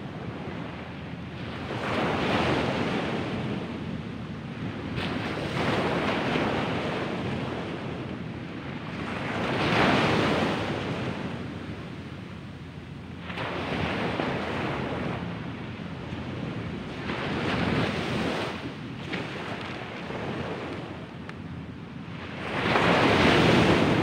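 Small ocean waves breaking and washing up a sandy beach, the surf swelling and fading about every three to four seconds, the loudest surge near the end.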